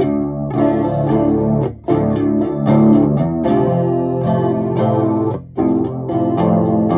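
Electric guitar strummed in chords through a Crate Acoustic 10-watt combo amp, clean with no distortion. The chords ring steadily, with two short breaks, the first about two seconds in and the second past halfway.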